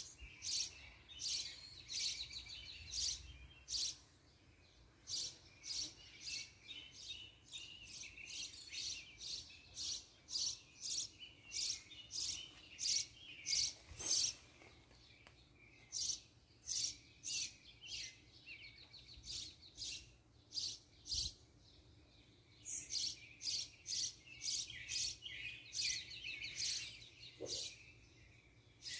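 Birds chirping: a long run of short, high chirps, about two to four a second, pausing briefly a few times.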